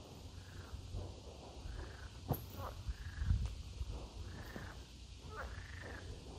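Frogs calling from a pond: a run of repeated calls, each rising and falling in pitch, about one every second or so. There is a low wind rumble underneath and a few sharp clicks.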